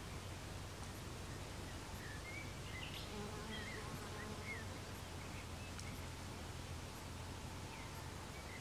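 Faint field ambience: a steady low hum with scattered short, high, gliding chirps, most of them in the middle of the stretch and a few more near the end.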